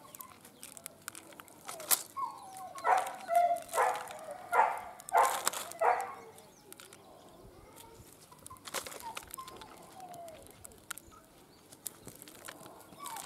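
Baked mud coating being cracked and crumbled off a clay-cooked egg by hand, with scattered small clicks and crunches. A bird calls about five times in quick succession a few seconds in, louder than the handling.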